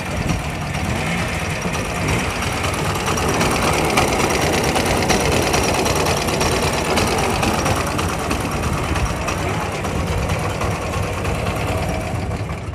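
Ural sidecar motorcycle's flat-twin engine running steadily with a rapid, even beat.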